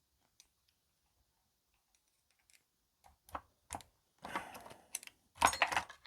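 Small metal chainsaw engine parts and tools being handled on a workbench: a few faint ticks, then a run of sharp clicks and short clatters over the last three seconds, the loudest near the end.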